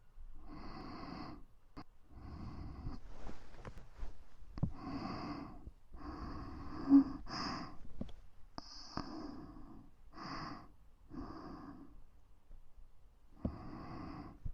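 Close-miked ASMR breathing: a series of soft, breathy breaths into the microphone, about nine in all, each lasting under a second, with small clicks between them and one brief louder pop about seven seconds in.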